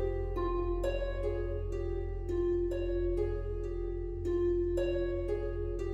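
Background music of slow plucked-string notes that ring on, a new note or chord struck every half second to a second, over a steady low hum.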